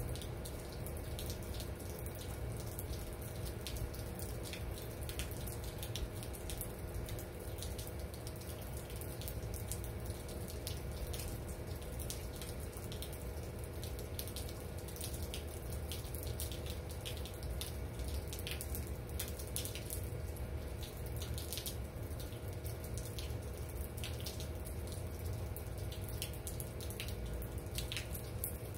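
Steady rain, with many close drops and drips striking in quick, irregular ticks over a faint steady hum.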